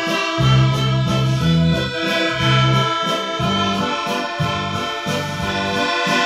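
Instrumental background music: held chords over a bass line that steps about twice a second.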